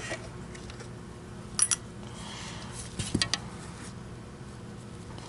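A few light clicks and taps of hard plastic vacuum-cleaner parts being handled: one about one and a half seconds in and a quick cluster around three seconds, over a faint steady hum.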